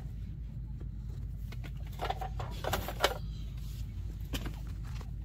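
Chinchilla scuffling in a tray of dust-bath sand: scattered small scratches and clicks, with a short flurry of rustling about two to three seconds in, over a steady low hum.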